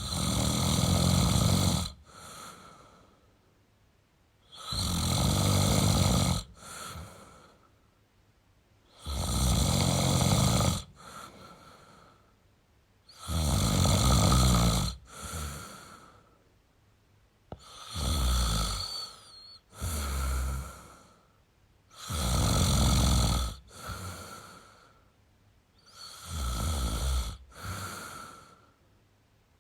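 A man snoring in a slow, even rhythm: a loud snore about every four seconds, each followed by a shorter, quieter breath, with quiet in between.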